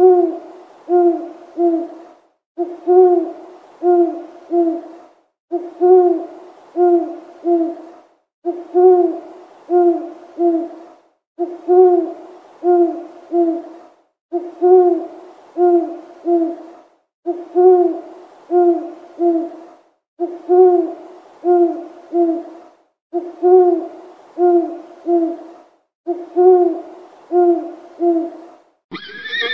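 Small owl hooting: short, low hoots in runs of three or four, a new run about every three seconds.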